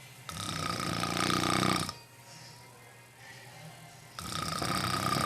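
Person snoring: two long, rattling snores about four seconds apart, each lasting about a second and a half.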